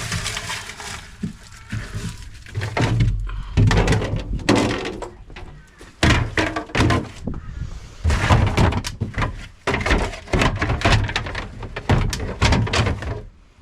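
Irregular thuds, knocks and cracks of plastic fridge parts being pulled apart and handled.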